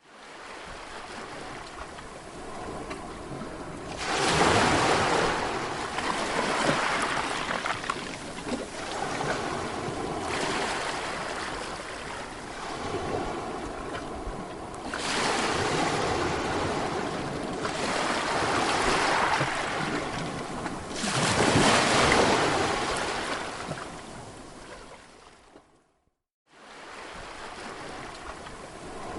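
Sea waves washing onto a shore: a steady surf with three louder breakers swelling and fading over several seconds each. The sound drops out to silence for a moment near the end.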